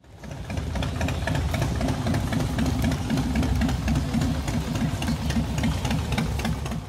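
Motorcycle engines running steadily, a low, uneven rumble that fades in at the start.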